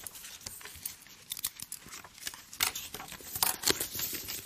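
Paper ballot slips rustling and being folded by hand, with small irregular scratches and taps, busier in the second half.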